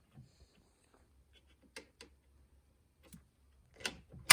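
A few faint, scattered metallic clicks and taps: pliers being worked against the starter motor's terminals to bridge them and crank the Renault F7R engine. The engine catches abruptly at the very end.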